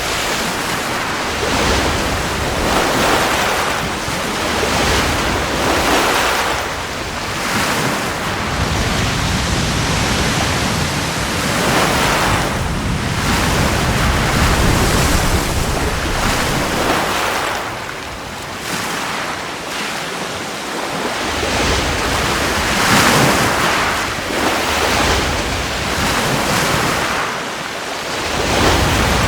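Ocean surf: waves breaking and washing in, a loud rush of water noise that swells and eases every few seconds.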